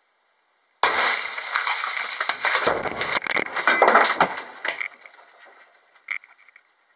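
Six Ford Ranger SRS airbags set off together against a quarry rock face: a sudden blast, then about four seconds of crashing and clattering of rock and debris that fades out, with one sharp knock near the end.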